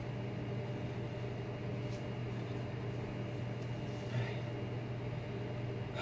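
Room tone: a steady low mechanical hum, with one short faint sound about four seconds in.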